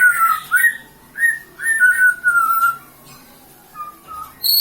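Caged songbird singing a run of clear whistled notes that slide downward, with one longer falling note about two seconds in. The notes grow fainter and sparser in the second half, and sharp high chirps start at the very end.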